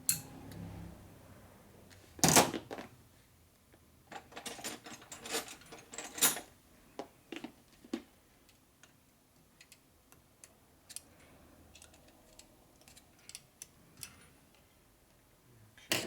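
Metal clicks and taps as a snap ring is worked into its groove in a motorcycle fork tube, above a freshly driven oil seal. A loud metallic clack comes about two seconds in, then a run of quick clicks from about four to six seconds, then scattered lighter clicks.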